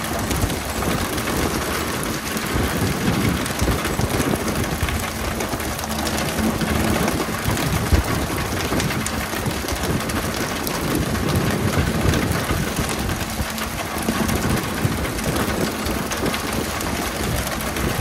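A fishing boat's engine running steadily under a constant hiss of water spray hitting the sea surface, with a few short thumps on deck.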